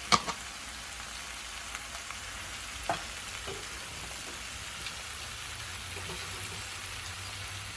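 Chicken Manchurian sizzling steadily in the pan with freshly added onions as it is stirred, with a few sharp knocks: one right at the start and another about three seconds in.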